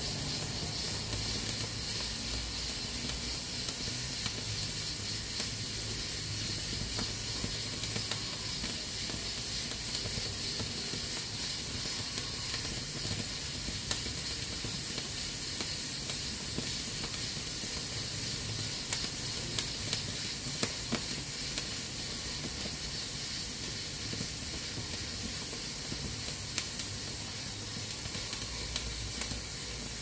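Aluminium pressure cooker hissing steadily as steam escapes from its valve, the sign that it is up to pressure. A few sharp crackles from the burning firewood come through in the second half.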